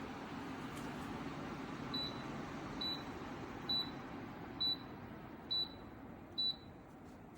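LEVOIT tower fan running, its airflow noise getting gradually quieter, with six short high beeps from its controls about a second apart.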